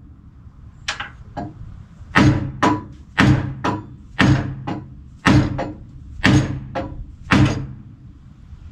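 Hammer striking a steel fender bracket on a car's front end, about a dozen blows in a steady rhythm, often in pairs, each ringing briefly.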